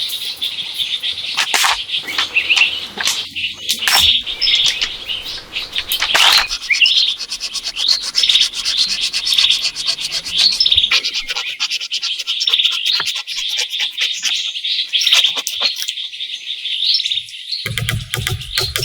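Many small birds chirping and singing together in a dense, continuous chorus. A few sharp knocks and some rubbing sounds come in the first several seconds.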